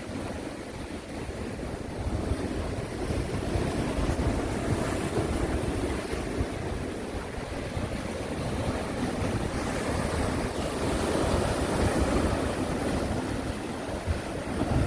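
Sea waves breaking and washing on the shore, a continuous rushing surf that swells louder about four seconds in and again around eleven seconds, with wind rumbling on the microphone.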